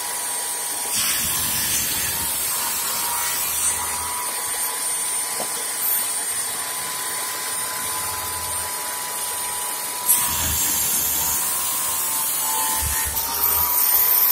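Electric motor of a home-built mitre saw for picture-frame moulding running with a steady high whine. About ten seconds in a louder noise sets in suddenly, and near the end the whine briefly drops in pitch and comes back up.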